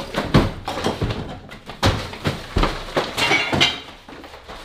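Irregular knocks, thuds and clatter of kitchen items being knocked over and tossed about, with the rustle of packets being grabbed.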